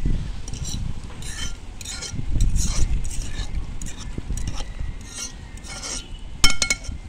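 Irregular stirring and scraping in a metal pot of coconut milk boiling down over a wood fire for salt mackerel rundown, with bouts of low rumble. A sharp clack, the loudest sound, comes near the end.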